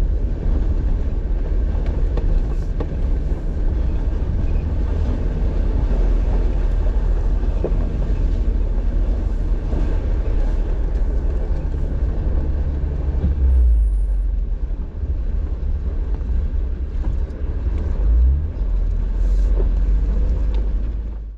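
Jeep driving on a dirt trail: a steady, loud low rumble of engine and tyres that cuts off suddenly near the end.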